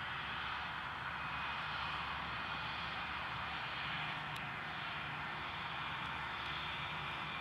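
Jet engines of a Germanwings Airbus A320-family airliner running as it rolls along the runway after landing: a steady whine over a broad rush and a low rumble.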